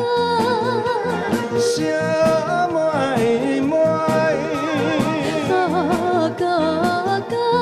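Male–female vocal duet: a woman and a man sing lines in turn, with vibrato, over band accompaniment with a steady beat.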